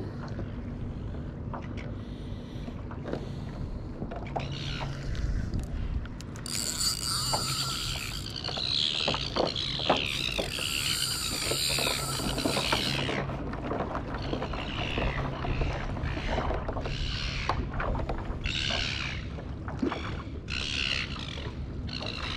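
Hobie Mirage pedal-drive kayak being pedalled: a steady low drone with repeated squeaky swishes of water and drive as the strokes go, and a louder hissing stretch through the middle.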